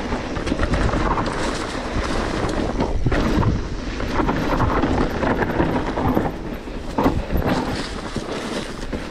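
Specialized Turbo Levo electric mountain bike descending a rough, rocky trail at speed: tyres rolling over stones and the bike rattling with many quick knocks, with wind on the microphone.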